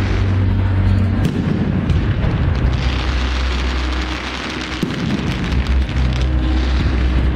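Fireworks going off: repeated booms and crackling bursts, one after another, over a steady low rumble.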